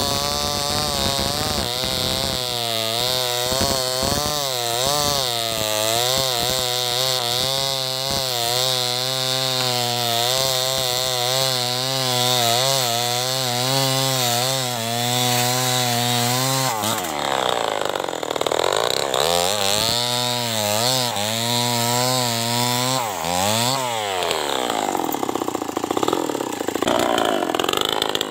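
Stihl 070 two-stroke chainsaw cutting through a dead log, its engine pitch wavering under load. About two-thirds of the way in it comes off the cut and revs up and down several times, with one sharp rev and drop near the end.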